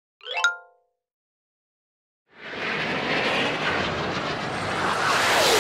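Cartoon rocket launch sound effect: a steady rushing roar of rocket exhaust that starts about two and a half seconds in and grows slightly louder. Just before it, near the start, there is one brief pitched blip.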